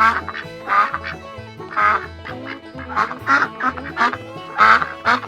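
A duck quacking, a run of about eight harsh quacks, some in quick pairs, over bluegrass background music.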